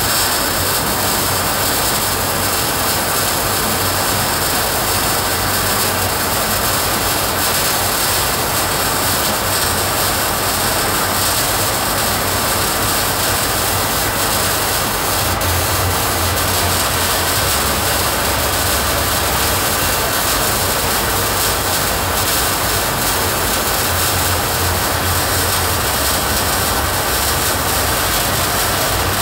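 Arc welding: a continuous, steady hiss at an even level, with a low hum that swells now and then, strongest around the middle and again near the end.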